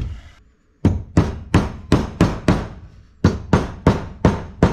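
Claw hammer tapping wooden bungs dry into holes in a mahogany frame: two runs of sharp blows, about three a second, with a short pause between.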